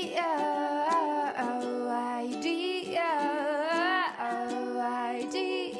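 Background music: a wordless vocal melody over a light accompaniment with a steady beat.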